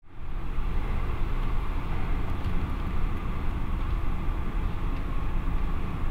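Hurricane Patricia's wind blowing hard and buffeting the microphone, mixed with heavy surf breaking, in a steady noise that never lets up.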